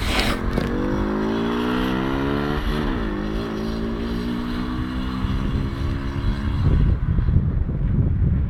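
A motor vehicle's engine accelerating, its pitch climbing steadily, dipping briefly about three seconds in, then climbing again until it stops abruptly near seven seconds. Wind rumbles on the microphone after it.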